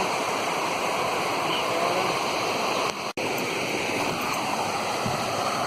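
Waterfall: a steady rush of falling water, cut off for an instant about three seconds in.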